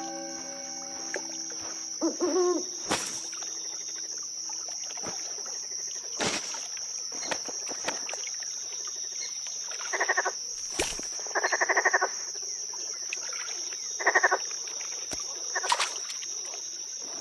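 Night-time nature ambience: steady, high-pitched insect chirring throughout, with several short bouts of rapid frog croaking in the second half, the longest about a second. A few sharp clicks stand out.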